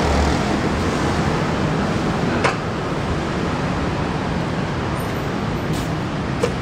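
Steady city street traffic noise, with two brief clicks, one about two and a half seconds in and one near the end.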